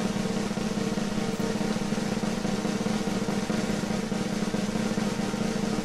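A steady drum roll on a snare drum.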